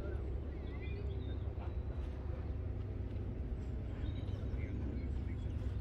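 Outdoor park ambience: a steady low rumble with small birds chirping here and there.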